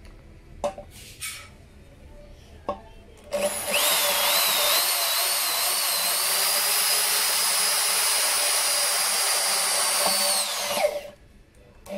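Total 850 W corded drill starting about three seconds in with a wavering whine, then running steadily for about seven seconds as a small bit drills into a steel plate, and winding down near the end. The speed has been turned down for drilling the metal. A few light clicks from handling the drill come first.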